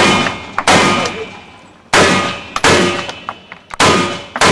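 Rifle shots in three quick pairs, six sharp reports in all. The two shots of each pair fall about two-thirds of a second apart, and the pairs come about every two seconds. Each report has a ringing, metallic-sounding tail.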